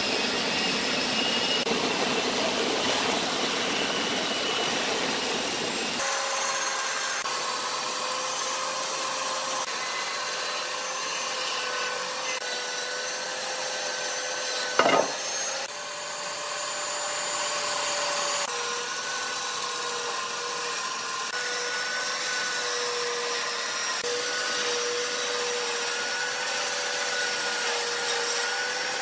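Large vertical band saw running and cutting through rough wooden slabs: a steady whine under the hiss of the blade in the wood. A single sharp knock stands out briefly about fifteen seconds in.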